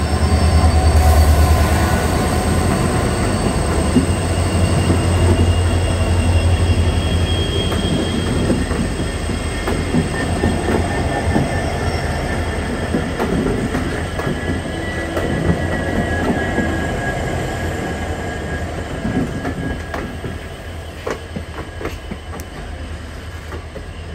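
Train running on the rails: a heavy, steady low rumble of wheels on track with a faint high wheel squeal above it. It is loudest at the start and slowly fades, with a few sharp clicks near the end.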